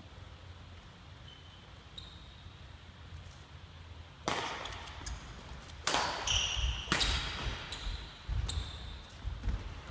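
Badminton rackets hitting a shuttlecock in a rally, with three sharp hits echoing in the sports hall between about four and seven seconds in. Short shoe squeaks and thudding footsteps on the wooden court come between the hits.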